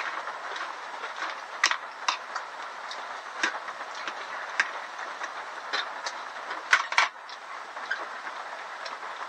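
Irregular sharp clicks and clinks of cutlery on a plate during a meal, over a steady hiss.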